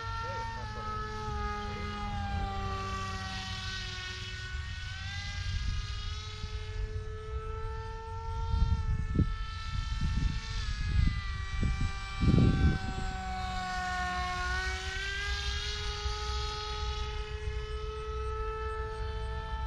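Flite Test Alpha RC airplane's electric motor and propeller whining overhead, the pitch sinking and rising twice as it flies its circuit. Low wind gusts thump on the microphone partway through, the loudest near the middle.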